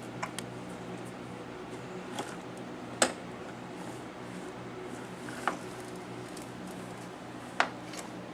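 Six-month-old baby hiccuping: short, sharp hiccups about three, five and a half and seven and a half seconds in, with a few fainter ticks between, over a steady background hum.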